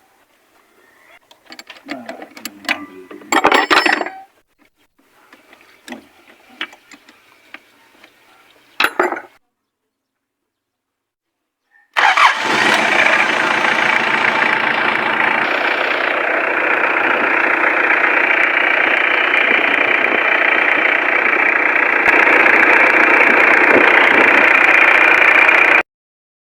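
A few clicks and knocks, then a Mitsubishi 4M40 four-cylinder diesel engine starts at once, with almost no cranking, and settles into a steady idle: a quick start after fresh glow plugs, injector nozzle tips and fuel filter, where it had been hard starting. The sound cuts off abruptly near the end.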